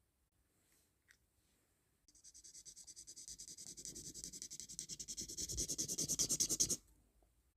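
Rapid, evenly repeated scratching strokes on a surface. They start about two seconds in, grow louder and stop abruptly near the end.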